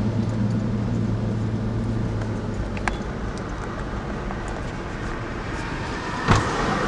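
Car driving slowly in town traffic, heard from inside the cabin: steady engine hum and road noise, with a low engine tone that drops away about two and a half seconds in. A single sharp knock a little over six seconds in.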